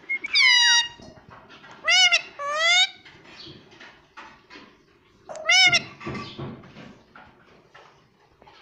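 Indian ringneck parakeet calling: one falling call at the start, two quick arched calls about two seconds in, and another about five seconds in.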